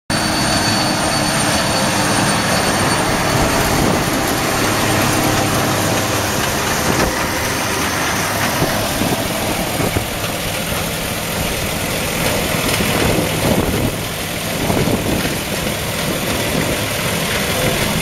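Kubota M7151 tractor's 6.1-litre four-cylinder diesel engine running steadily as it pulls a working Kubota BF3225 round baler, with the baler's machinery going along with it. The engine's hum is plainest in the first several seconds as the tractor comes up; after that an even machine noise carries on as it passes.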